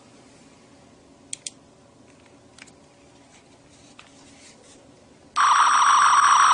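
Two sharp clicks a little over a second in. Then, near the end, a Star Trek phaser prop fires: a loud, steady, buzzing electronic firing sound with high ringing tones starts suddenly and holds.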